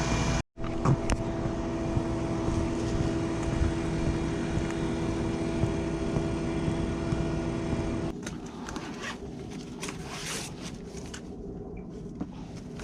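Steady engine drone with a constant hum, which stops abruptly about eight seconds in, leaving quieter outdoor background with faint rustles and clicks.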